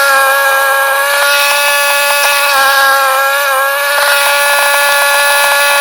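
Ariens 624E snowblower's engine running steadily at high throttle, its pitch holding even, with a few faint ticks over it.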